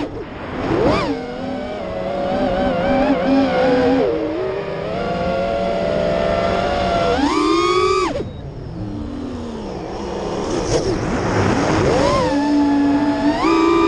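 Armattan Chameleon Ti FPV quadcopter's brushless motors and propellers whining, the pitch rising and falling with throttle. There are sharp punches up in pitch about seven seconds in and again near the end, each dropping away quickly.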